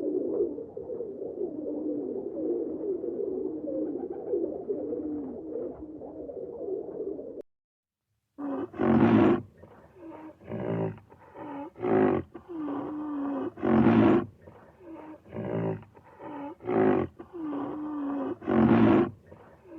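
Pigeons cooing steadily for about seven seconds, cut off abruptly to a second of silence. Then a big cat roaring: a run of loud roars, the loudest about every two to three seconds, with shorter grunts between.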